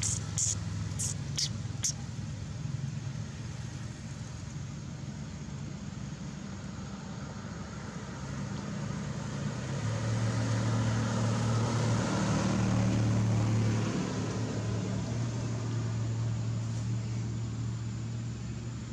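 A steady low engine hum that grows louder for a few seconds from about ten seconds in, then eases back. A few short high chirps sound in the first two seconds.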